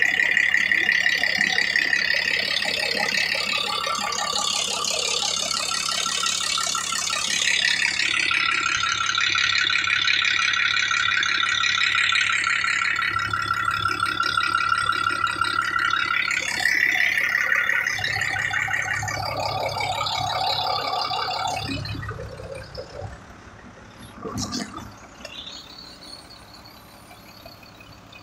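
Truck engine running with a loud, steady metallic rattle, heard close up; the engine has a leaking cylinder head and overheats. The rattle drops away sharply about 22 seconds in, leaving a much quieter running sound with one knock a couple of seconds later.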